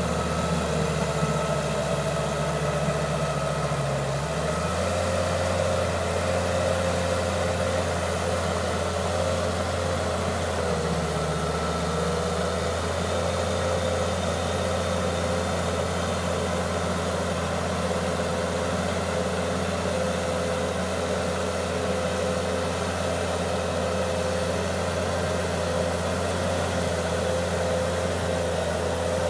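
John Deere 700H crawler dozer's diesel engine running steadily. Its low hum shifts in pitch about four seconds in and again around eleven seconds.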